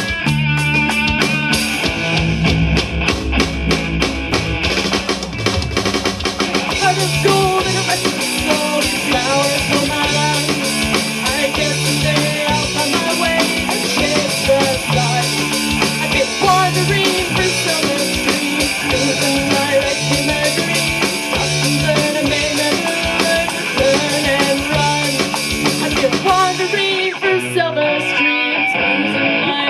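Alternative-rock band playing: full drum kit, electric guitars and bass. Near the end the drums drop out, leaving strummed guitar.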